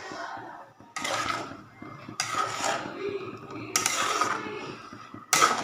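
Cooking sounds from a steel kadai of spinach gravy with paneer on a gas stove: four short, sudden noisy bursts, each dying away within about a second, with the clatter of metal cookware.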